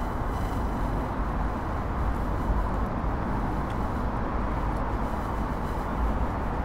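Radio-frequency interference picked up by a Tascam DR-05X handheld recorder: a steady rushing noise with faint, thin, high-pitched steady tones above it. It is interference in the recorder's own circuitry, not sound in the air.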